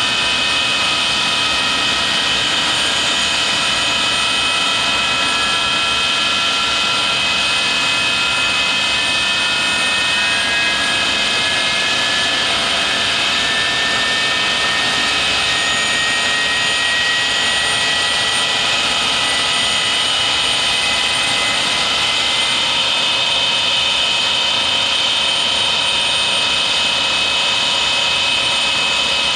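Avro Vulcan bomber's Rolls-Royce Olympus turbojet engines running loudly and steadily, with a high whine. Some of the whine tones climb slowly in pitch over the first twenty seconds or so as the engines spool.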